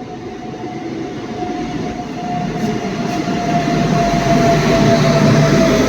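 Train drawing in, its rumble growing steadily louder, with a steady high-pitched squeal that drops slightly in pitch.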